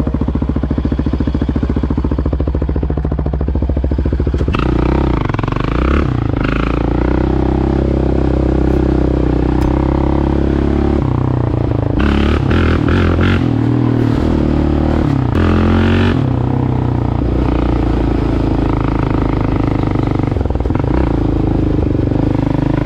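Yamaha Raptor 700R ATV's single-cylinder four-stroke engine running. It is steady at low revs at first, then from about four or five seconds in it revs up and down repeatedly as the quad is ridden.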